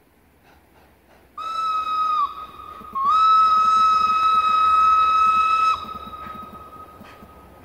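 Steam whistle of the rack steam locomotive 97 501, blown as one short blast and then one long blast, each sagging in pitch as it cuts off. A faint trace of the tone lingers for about two seconds after the long blast.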